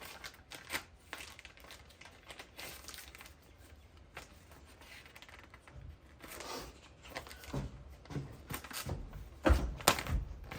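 A parts box being unpacked: paper and plastic packaging rustling and crinkling while parts are handled, with scattered clicks and a few knocks, the loudest near the end.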